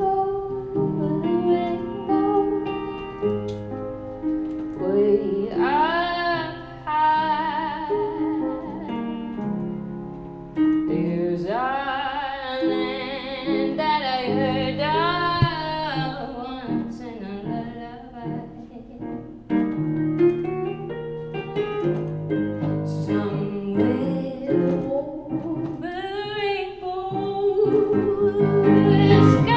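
A woman singing a song with piano accompaniment, her voice sliding up and down over held chords.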